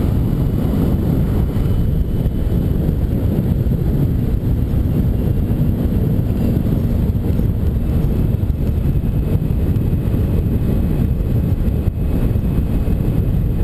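Steady wind rush buffeting the microphone of a 2009 Kawasaki Ninja 250R at road speed, with the bike's parallel-twin engine running underneath.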